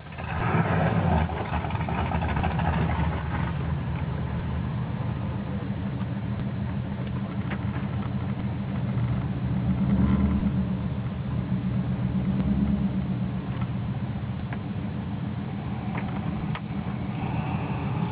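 Ford Lightning pickup's V8 with a Kenne Bell 2.3 L supercharger running, heard from inside the cab: a steady low engine sound, louder in the first couple of seconds and again around ten seconds in.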